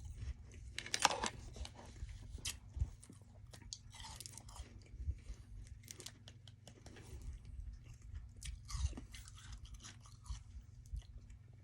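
Close-up chewing of soft freezer frost ice: a person's mouth crunching and munching it in irregular bites, with a few louder crunches.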